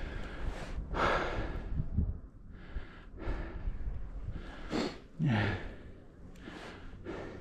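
Snowboard sliding through soft powder in a series of short swishes, about one a second, mixed with the rider's heavy breathing and a short low grunt about five seconds in.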